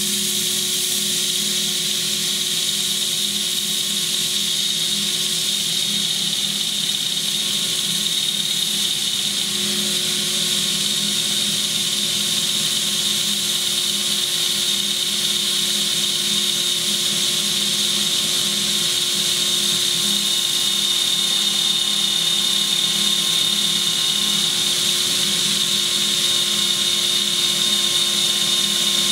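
Cordless drill-driver running steadily, spinning a 320-grit hook-and-loop sanding disc with a knife blade held against it: a constant motor whine over the hiss of the abrasive on the steel as the edge is polished.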